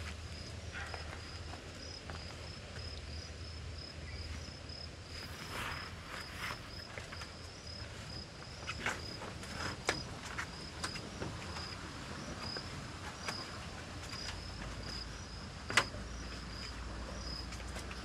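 An insect chirping steadily, a short high note about twice a second, with a few sharp knocks and clicks scattered through.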